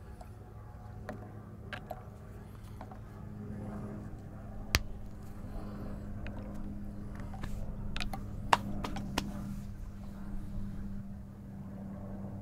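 A steady low engine hum that grows louder toward the middle, with a few sharp plastic clicks, about five and eight seconds in, as the cap of a plastic water bottle is handled.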